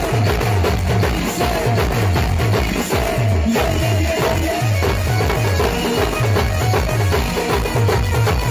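Live Adivasi Timli band-party music: large drums struck with sticks beat a fast, even rhythm of heavy low strokes under a melody line.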